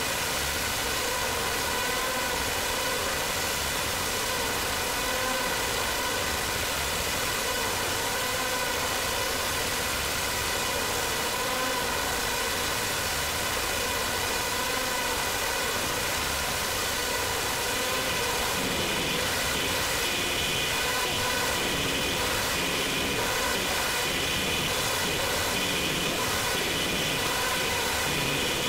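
Digital feedback loop in Ableton Live, the signal fed back through an effect chain with VocalSynth 2 and a frequency shifter: a steady noisy drone with a stack of evenly spaced ringing tones that wobble slightly. About two-thirds of the way in the low end fills in and the upper tones get brighter.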